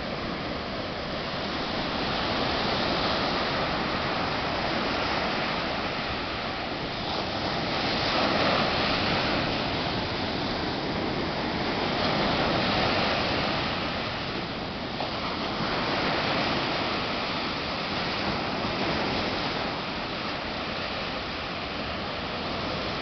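Ocean surf breaking and washing up a sandy beach: a continuous rush of water that swells and eases every few seconds as the waves come in.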